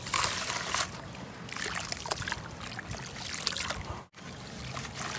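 A hand crumbles a dry, dusty chunk of sand-cement into a basin of water. There is a crackling, fizzing splash as the dry material soaks and breaks apart, with many small ticks of bursting bubbles. The sound cuts out for an instant about four seconds in.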